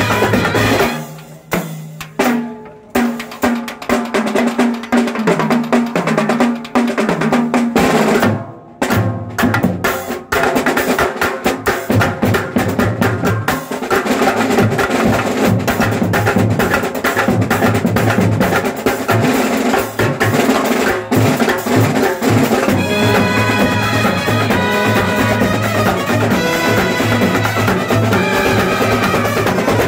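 Kerala brass band playing: snare drums roll and bass drums beat, with short breaks near the start. About two-thirds of the way through, trumpets and clarinets come in with a melody over the drums.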